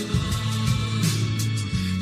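Background music: an instrumental stretch of a pop song with no singing, held bass notes under a steady accompaniment.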